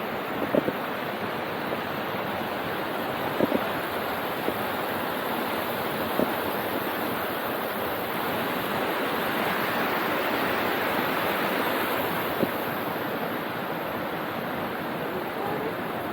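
Steady rush of a mountain stream, with a few faint scattered clicks.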